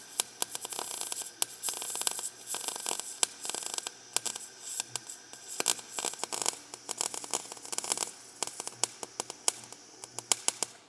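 MIG welding arc crackling and spitting irregularly as a practice bead is run on thin sheet steel, then cutting off abruptly at the end.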